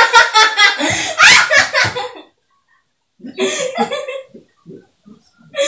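People laughing and talking loudly, cut off abruptly about two seconds in. After a short gap the laughter comes back as short chuckles, about three a second, near the end.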